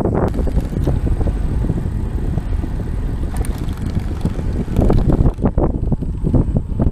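Wind buffeting the microphone of a camera mounted on a moving road bike, a steady low rush with road rumble from the tyres on pavement. The gusts flutter harder about two-thirds of the way in.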